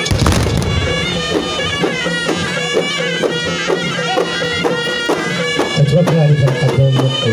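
Moroccan hiti folk music: ghaita reed pipes play a loud, nasal melody over a steady beat of large hand-held frame drums, about two strokes a second. A heavy drum stroke lands right at the start.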